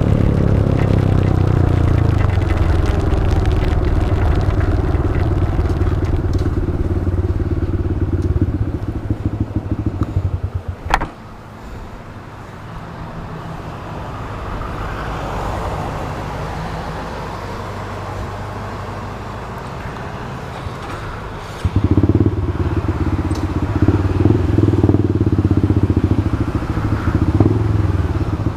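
Honda Grom motorcycle's small single-cylinder engine running and slowing, its pitch falling. About eleven seconds in there is a sharp click and the engine sound drops away to a softer steady hiss for about ten seconds, then the engine is suddenly loud again to the end.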